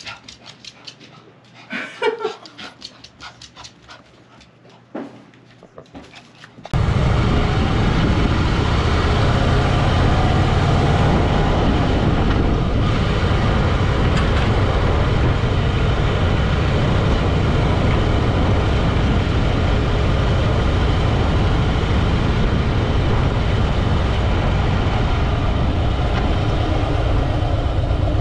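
A small dog whines briefly twice in a quiet room. About six and a half seconds in, it cuts abruptly to a 2011 Harley-Davidson Fat Boy's Twin Cam 96B V-twin (1584 cc) running steadily under way, a loud, even rumble.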